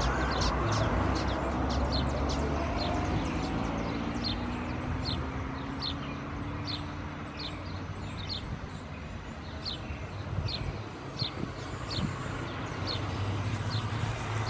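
Airbus A319 jet engines running at idle thrust as the airliner taxis: a steady low rumble with a faint whine that slowly drifts in pitch. A bird chirps repeatedly over it, short high notes about once or twice a second.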